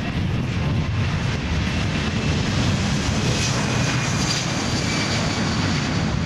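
Boeing C-17 Globemaster III's four Pratt & Whitney F117 turbofans at takeoff power during the takeoff roll: a steady, loud, deep rumble with a faint high whine.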